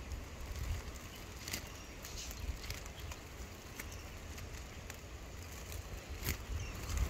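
Stretched plastic wrap of a hammock crackling under a person's weight, with sharp ticks coming irregularly about once a second over a low steady rumble.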